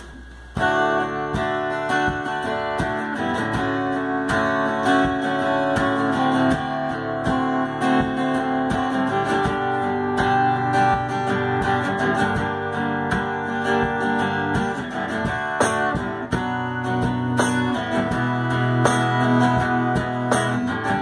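Acoustic guitar strummed in steady chords, starting about half a second in.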